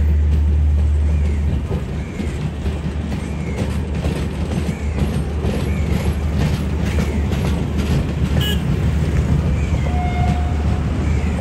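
An express train's passenger coaches roll past, giving a steady low rumble. In the middle comes a run of clicks as the wheels cross the rail joints.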